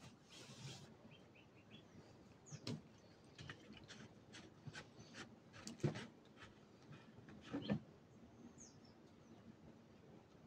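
Faint, scattered clicks and knocks, the loudest about three, six and seven and a half seconds in, with a few short bird chirps in between.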